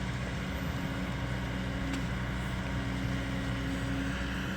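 Diesel engine of a bulldozer-type earthmover running steadily, a deep low hum with a steady tone over it that drops away shortly before the end.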